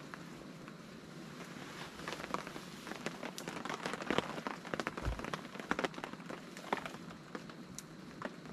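Rain drumming on a camping tarp: a steady patter of many irregular drop taps, heavier through the middle. A single low thump comes about five seconds in.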